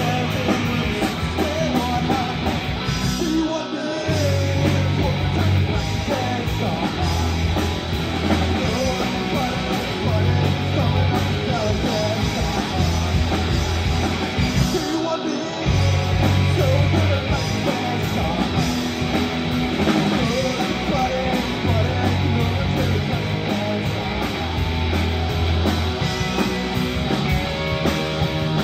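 Live rock band playing a song on electric guitars, electric bass and drums, with a driving bass line. The band cuts out briefly twice, about four seconds in and again about fifteen seconds in.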